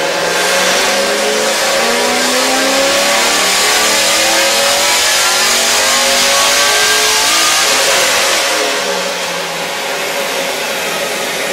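2001 Camaro SS's LS1 V8 making a full-throttle dyno pull, the engine and exhaust note climbing steadily in pitch for about eight seconds. Then the throttle shuts and it drops back to a lower, steady running sound.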